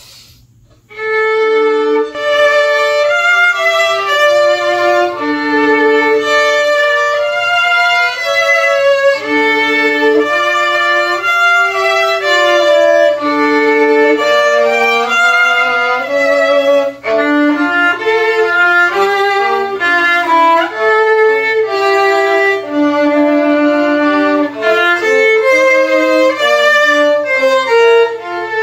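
Violin playing a melody of held and moving notes, beginning about a second in.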